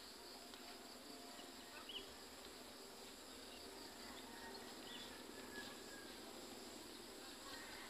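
Faint, steady insect buzzing in a rural garden.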